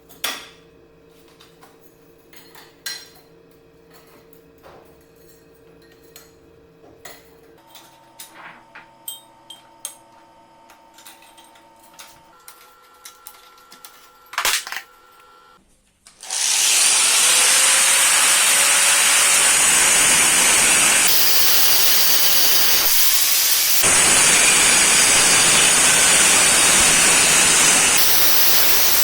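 Light scattered knocks and clicks of workshop handling, then about sixteen seconds in a loud, steady hissing noise starts and runs on, shifting slightly in level a few times.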